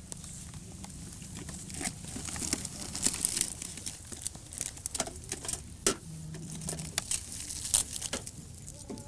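Irregular crinkling and rustling with scattered sharp clicks: medicine packets, vials and syringes handled and sorted in an open medicine box.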